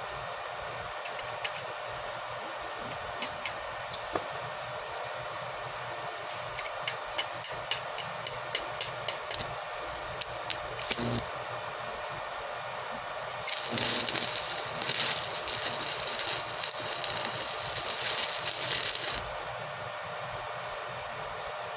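Electric arc welding: the arc crackles and hisses loudly for about six seconds, then cuts off suddenly. Before it comes a series of sharp taps, about two to three a second at their quickest.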